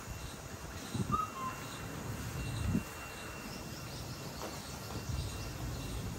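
Outdoor farm ambience: irregular low rumbling thumps, a short two-note bird chirp about a second in, and a faint steady high whine.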